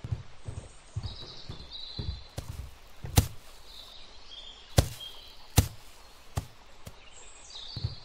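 Irregular soft thuds and three sharp knocks, with faint high bird chirps now and then.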